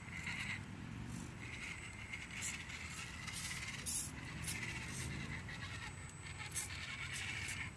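Barrage RC rock crawler's electric motor and gears whining, the pitch rising and falling as the throttle is worked, with brief scrapes and clicks as it crawls over the course.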